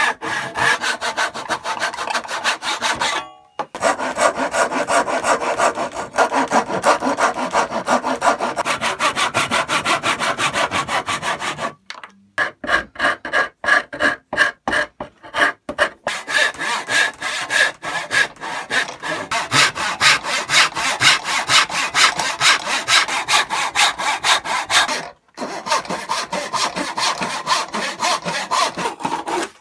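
Brass-backed backsaw cutting into a wooden block by hand, in quick back-and-forth strokes with a few short pauses.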